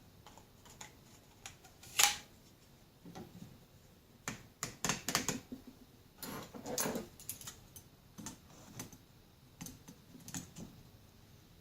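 Irregular clicks and light knocks of plastic and metal being handled, as the homemade rotating fly tying vise (vise grips mounted in PVC pipe) is moved and turned; the sharpest click comes about two seconds in, with a busier run of clicks midway.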